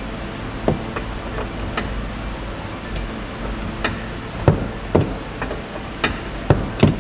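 Irregular metallic clicks and knocks of a spanner working the nut on a Skoda Fabia's anti-roll bar link, with a few sharper knocks in the second half, over a steady low hum.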